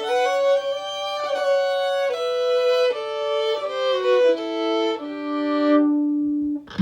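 Music: a solo fiddle melody whose notes step downward, sliding between some of them, and settle on a long held low note near the end.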